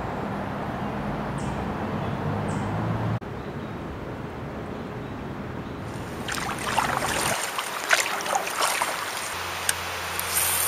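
Outdoor river ambience: a steady rush of wind and moving water that changes abruptly about three seconds in. From about six seconds in come irregular crackling, trickling splashes of water.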